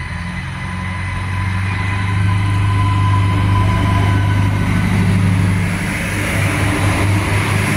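Adelaide Metro 3100 class diesel railcar running by close up, its diesel engine making a steady low drone that grows louder over the first couple of seconds as the train comes alongside, then holds.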